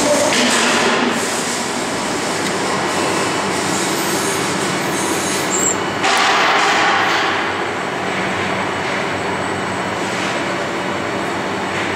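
Steady industrial machinery noise, a dense rumble with a constant hum. A louder hiss swells for about a second and a half midway through.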